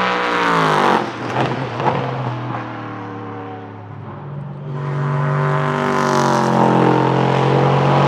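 Ligier JS P320 LMP3 prototype's 5.6-litre Nissan VK56 V8 passing at speed, its note dropping in pitch as it goes by, with a few sharp cracks from the exhaust a second or two in. The engine fades, then swells again about halfway through and holds steady at high revs.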